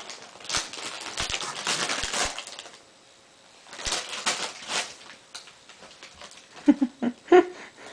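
Soft plastic package crinkling as a baby grabs and shakes it, in two bouts of rustling a second apart. Near the end a few short voice sounds come in.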